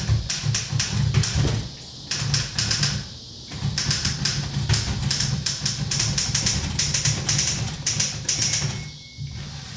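Old manual typewriter being typed on fast: loud clacking keystrokes in quick runs, with two short breaks in the first few seconds and a stop near the end.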